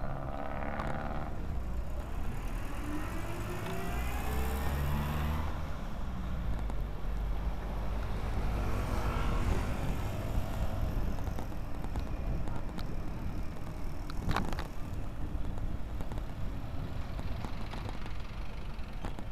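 Steady motor-traffic rumble heard from a moving bike, with an engine rising in pitch as it speeds up a few seconds in and again around halfway. A single sharp knock comes about three-quarters of the way through.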